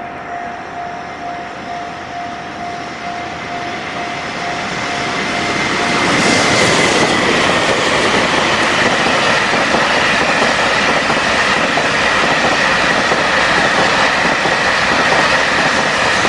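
Japanese level-crossing warning bell ringing over the sound of an approaching electric container freight train. About six seconds in, the train reaches the crossing and the loud, steady rumble and clatter of its wheels over the rails takes over.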